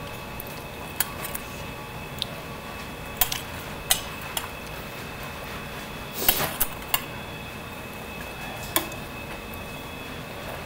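Metal tongs clicking and clinking against a steel plate and a metal pan, about eight separate sharp clicks with a small cluster about six seconds in, over a steady low hiss.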